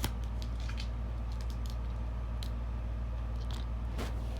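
Scattered small clicks and crinkles of a plastic DVD case and its sticky security seal being picked and pulled at by hand, over a steady low hum.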